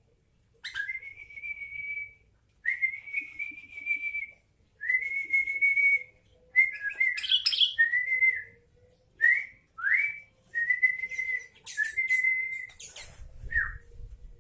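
A run of clear whistled notes, most held at one steady pitch for a second or so, with short sliding whistles after the middle, several rising and one falling near the end.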